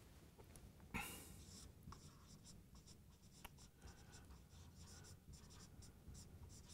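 Dry-erase marker writing on a whiteboard: faint, short scratchy strokes as the words are written out.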